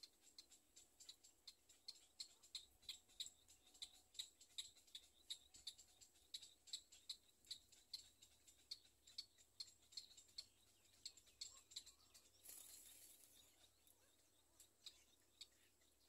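Black-crowned night heron chicks at the nest giving faint, rapid ticking begging calls, about three a second, which stop about twelve seconds in. A brief soft rustling hiss follows.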